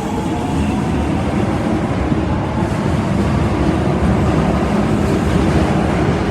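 Osaka Metro Tanimachi Line train running, a steady rumble and rush of wheels on rail that grows slightly louder. A pitched tone left over from just before fades out within the first moment.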